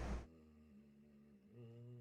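A sleeping person snoring: a loud snore cuts off in the first moment, then a quieter, low, steady humming breath carries on until the next snore.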